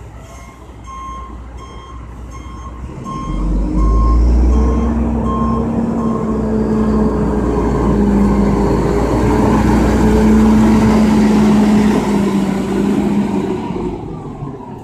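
Reversing alarm of a tractor-drawn aerial ladder fire truck beeping at a steady pitch, a little under twice a second, until about five seconds in. Under it the truck's diesel engine grows louder about three and a half seconds in and runs hard while the truck reverses, easing off near the end.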